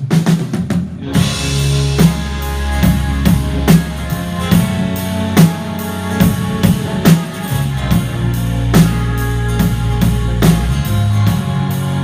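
Instrumental intro of a rock song: a drum kit keeps a steady beat under bass and guitar. The full band comes in about a second in.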